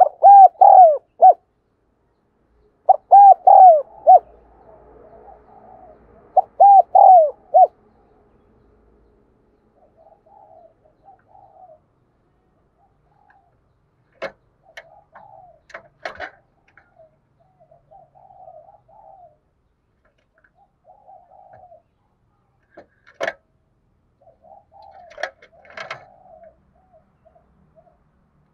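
Spotted dove cooing. Three loud phrases of a few arching coos come in the first eight seconds, then softer, quieter cooing is scattered through the rest, with a few sharp clicks.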